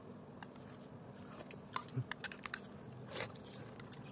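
Someone eating soup with a plastic spoon: faint chewing with scattered soft clicks of the spoon against the bowl, one a little louder about three seconds in.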